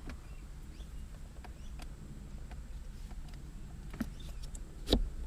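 Faint, scattered clicks and taps of the parts of an automatic car gear shifter being slid and fitted by hand, with a sharper click about five seconds in, over a low steady hum.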